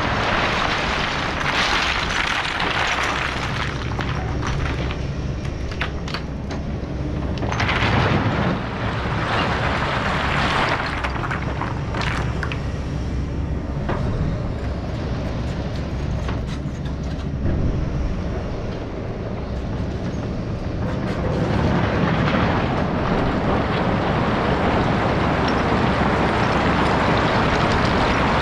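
Takeuchi TB2150 excavator's diesel engine running steadily under load, with intermittent scraping and a few sharp clanks from the bucket working soil and rock.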